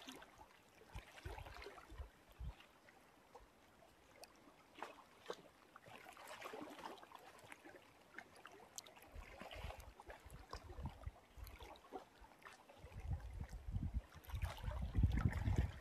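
Small wind-driven lake waves lapping and splashing close to the microphone. Low rumbling gusts of wind buffet the microphone near the end, the loudest part.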